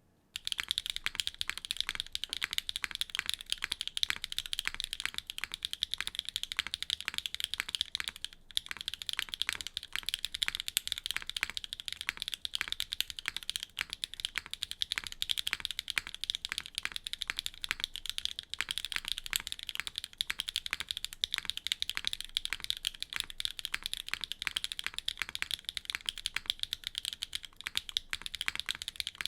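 Fast, continuous typing on a Neo65 mechanical keyboard with a carbon fibre plate and HMX Sogurt switches: a rapid stream of keystroke clicks. The clicks break off briefly about eight seconds in.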